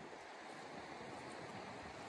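Soft, steady rushing of wind.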